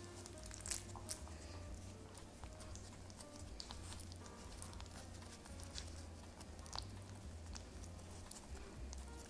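Soft handling sounds of a pork bun being filled and pleated: faint clicks and taps of a spoon and fingers on the dough and meat filling, the sharpest about a second in and again near seven seconds, over a low steady hum.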